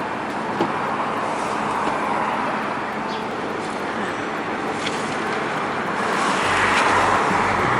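Road traffic noise from passing cars, swelling as a vehicle comes close about six seconds in.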